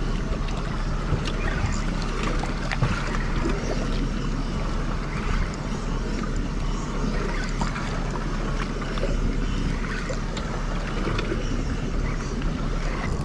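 Yamaha outboard motor idling in neutral, a steady low hum under the wash of water against the boat and wind on the microphone.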